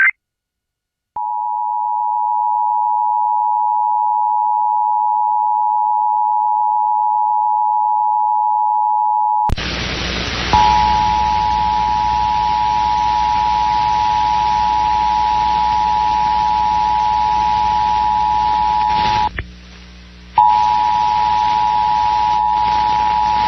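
Emergency Alert System two-tone attention signal (853 and 960 Hz sounded together): a steady, loud dual tone sounding the alert for a required monthly test. About a second in, it starts out clean. A hiss and low hum come in under it after roughly nine seconds, and near the end it drops out for about a second before resuming.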